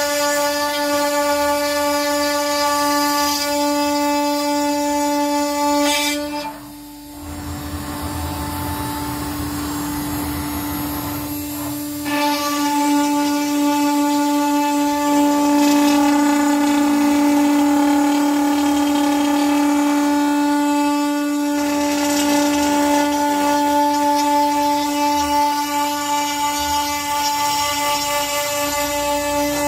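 CNC router spindle running at speed with a steady, high whine while its bit cuts a groove in a pine board. About seven seconds in the whine drops back for a few seconds under a rougher cutting noise, then comes back full.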